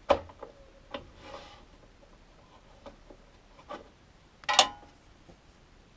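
Small wooden strips handled on a table saw's tabletop: a few sharp knocks and a short sliding rub, with one louder clatter about four and a half seconds in.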